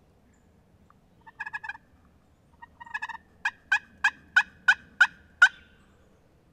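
Wild hen turkey calling: two short bursts of quick notes, then a run of seven yelps at about three a second, each falling in pitch.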